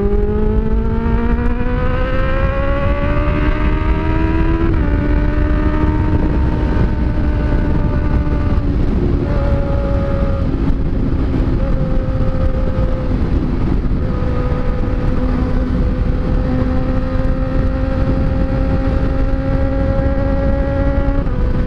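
Honda Hornet inline-four motorcycle engine accelerating, its pitch rising, then dropping at an upshift about five seconds in and holding a steady high-speed cruise with small throttle changes. Wind rushes over the microphone throughout.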